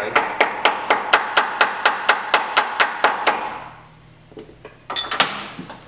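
A small red mallet tapping a key into the keyway of the supercharger drive shaft: a quick, even run of about fifteen light taps, about five a second, for some three seconds, each with a light ring. A sharper clatter near the end.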